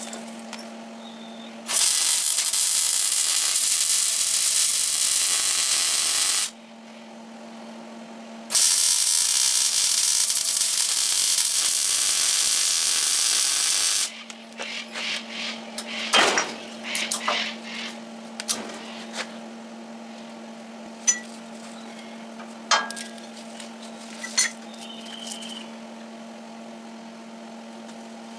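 MIG welder laying two weld runs of about five seconds each on a new steel front crossmember in a Ford pickup chassis frame. This is followed by scattered knocks and clicks of metal being handled. A steady low hum sounds in the pauses.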